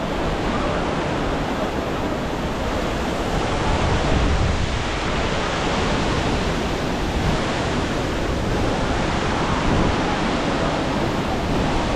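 Steady rush of a large waterfall, Thompson's Falls, falling water making an even, unbroken noise.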